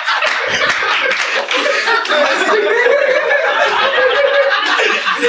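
Comedy club audience laughing together, a loud, continuous wave of laughter.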